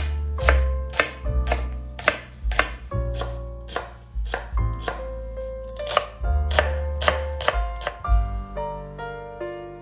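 Chef's knife slicing celery stalks on a wooden cutting board: crisp chops about two a second, stopping about eight seconds in. Soft piano music plays underneath.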